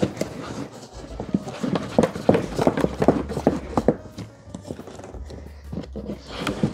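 Cardboard box and packaging being handled while an air purifier is unboxed: a quick, uneven run of knocks and taps, densest in the first half.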